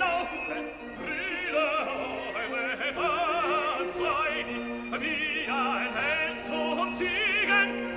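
Background music: operatic singing with a wide vibrato on long held notes over a sustained low accompaniment.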